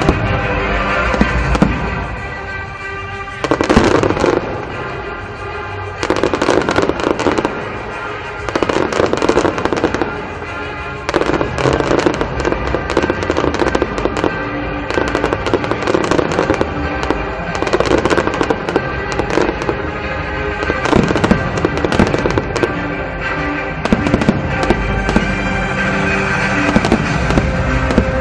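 Aerial fireworks shells bursting and crackling in rapid, dense volleys, over music played throughout.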